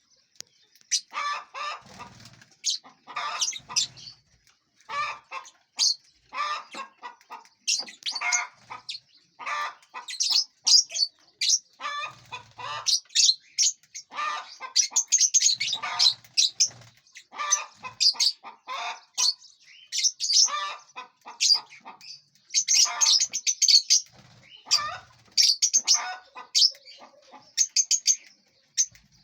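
Lovebirds chirping in a dense, irregular run of short, high calls, with wings flapping now and then.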